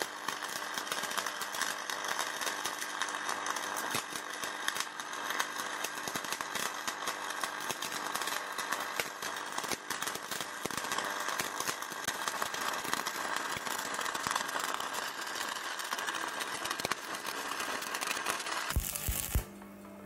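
Shielded metal arc (stick) welding: a 4 mm covered electrode burning on the root pass of a flat groove weld at about 180 A, giving a steady crackle and sizzle. The arc cuts off about a second before the end.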